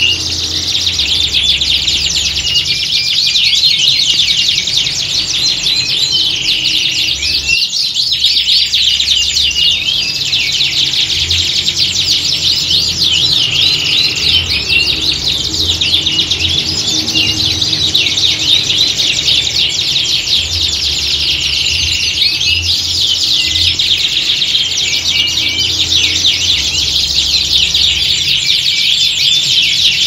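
Many domestic canaries singing at once: a dense, unbroken chorus of fast trills and chirps.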